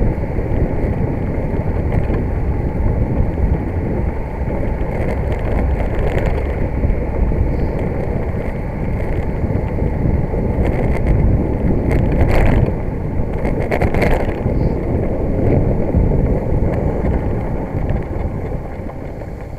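Wind buffeting the microphone of a camera on a moving bicycle, a dense low rush mixed with road traffic, with two brief louder noises in the second half. The rush dies down near the end as the bike slows.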